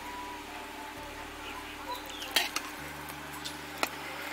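A serving spoon clinking against a stainless-steel thali as vegetable sabji is spooned into one of its bowls: a couple of sharp clinks about halfway through and another near the end, over a low steady hum.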